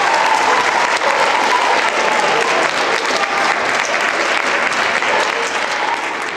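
Audience applauding, the clapping growing gradually quieter toward the end.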